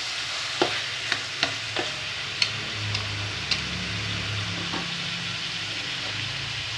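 Pork rib chunks sizzling as they are stir-fried in hot oil, searing firm. A utensil clicks against the pan several times in the first few seconds of stirring.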